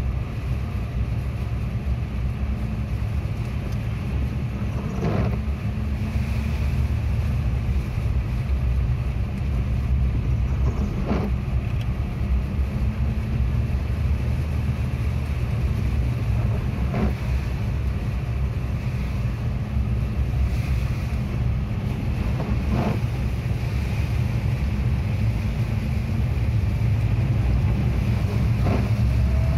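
Inside a car driving through floodwater in heavy rain: a steady low rumble of the car and its tyres pushing through water on the road. A windscreen wiper sweep is heard about every six seconds.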